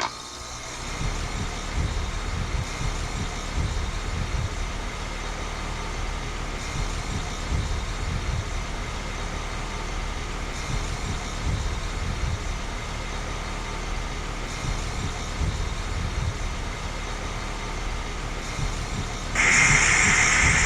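2020 Grandaire Sentry 2-ton central air conditioner's outdoor unit, with a Copeland scroll compressor, starting up and running with a steady mechanical hum and low rumble. Near the end the sound becomes abruptly louder and brighter, with a stronger hiss.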